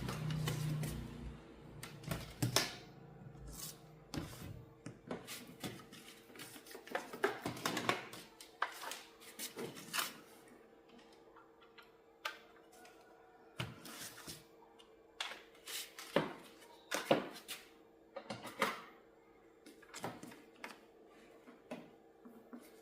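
Irregular clicks and taps of small parts and tools being handled during repair work on an LCD television, over a faint steady hum.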